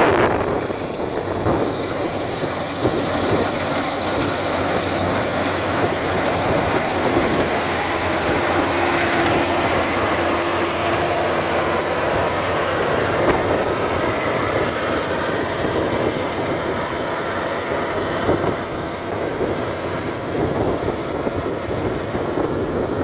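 Bimo 102 combine harvester running steadily as it harvests rice, a continuous dense mechanical noise of engine and machinery.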